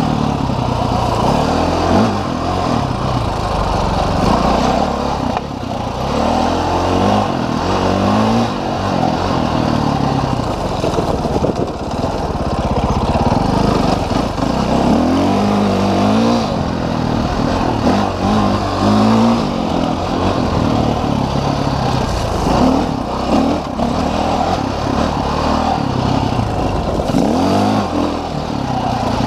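Dirt bike engine revving up and down continuously as it is ridden, its pitch climbing and dropping over and over with throttle changes.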